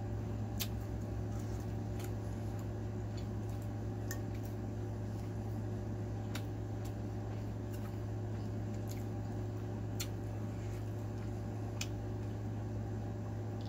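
Close-miked eating: wet chewing and mouth clicks as chow mein noodles and rice are eaten, with a plastic fork working through the food on the plate. Scattered short sharp clicks every second or two sit over a steady low hum.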